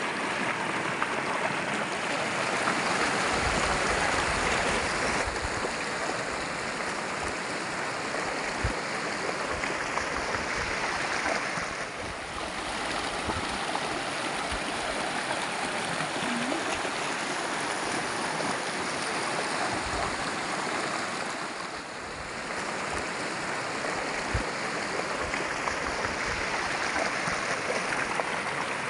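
River water rushing over boulders in small rapids, a steady roar of flowing water that dips briefly twice.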